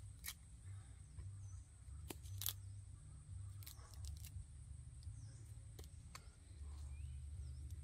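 Scattered small snaps and clicks as a green seed pod is split and peeled open by hand, the loudest about two and a half seconds in. A steady thin high tone and a few faint bird chirps sit behind them.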